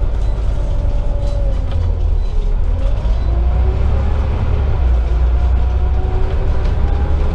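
Scania OmniCity double-decker bus heard from inside the upper deck: a low engine rumble with a drivetrain whine. The whine drops about two seconds in, then climbs steadily from about three seconds in as the bus gathers speed.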